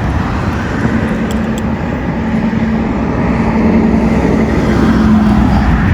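Steady engine noise: a constant hum over a loud, even rumble.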